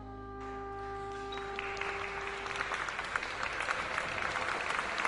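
A jazz band's last chord rings out as held notes over a low bass and fades. Audience applause starts about a second in and builds until it fills the room.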